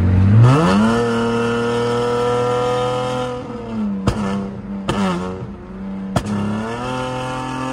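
Dodge Charger engine under full-throttle acceleration. The revs climb steeply in the first second and hold high, drop with a shift about three and a half seconds in, then climb again near the end. Three sharp clicks fall between the two pulls.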